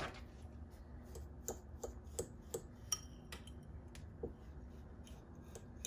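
Metal fork clicking and scraping against a glass bowl while stirring damp breadcrumbs: a string of light clinks, two or three a second, from about a second in until just past four seconds, after a single sharper click at the very start.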